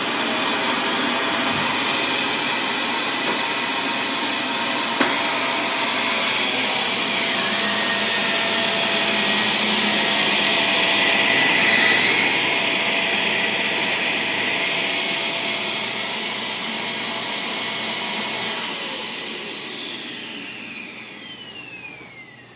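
Shark Navigator upright vacuum cleaner's motor switched on, starting abruptly and running steadily with a high whine. About 18 seconds in the power is cut, and the whine falls in pitch as the motor spins down.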